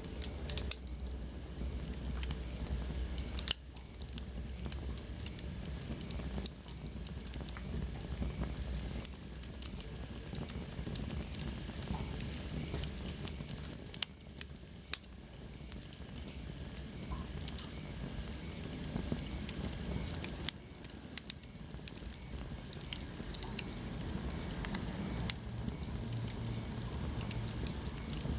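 Wood fire burning in a fireplace: steady hiss with irregular sharp crackles and pops. Partway through, a faint high whistle slowly falls in pitch.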